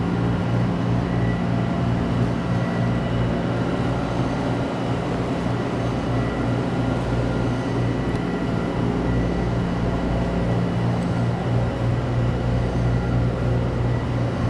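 Steady low electrical hum of convenience-store refrigeration and appliances, with a faint steady high tone above it.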